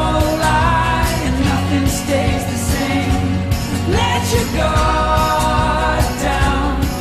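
Background music: a pop song with a singing voice over a steady drum beat.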